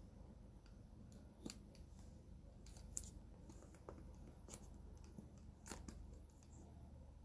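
Faint, scattered clicks and scrapes of hands working at a smartphone's boxed packaging, a few sharp ticks about a second apart over a low steady hum.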